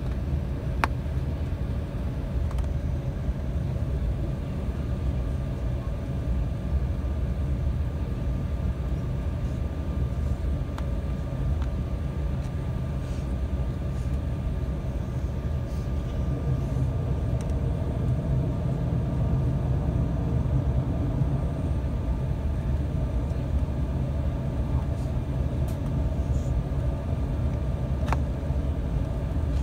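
Steady low rumble and hum inside the passenger cabin of an Embraer 195 airliner, from its GE CF34 turbofan engines and the airframe, with a few faint ticks.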